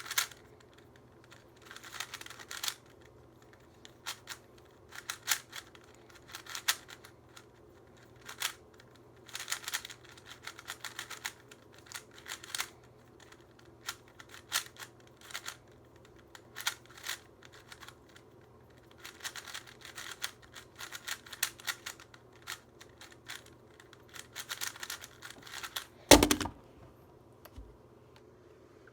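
A Rubik's Cube being turned fast during a timed speed solve: irregular bursts of rapid plastic clicking and clacking from the layers, broken by short pauses. Near the end there is one loud thump as the cube timer is slapped to stop the solve.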